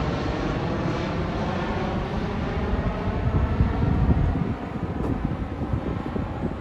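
Jet engine noise from an airliner passing low overhead on approach to land: a broad roar with a faint falling whine, loudest about four seconds in.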